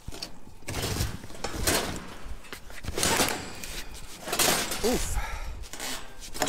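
Tubular steel chair frame clattering and scraping against a load of scrap metal as it is pushed up onto a truck bed, in several noisy bursts of rattling and banging.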